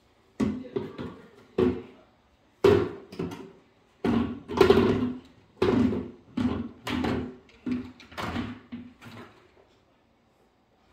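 Plastic bucket dragged and scraped across a hardwood floor in a run of short scrapes, about one a second, stopping shortly before the end.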